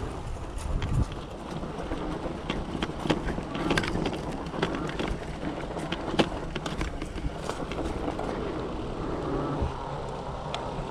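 Electric bike rolling over rough dry grass and dirt, its frame and handlebar fittings rattling and knocking over the bumps, with a steady rumble of tyres and wind. The knocks thin out near the end as it reaches smooth pavement.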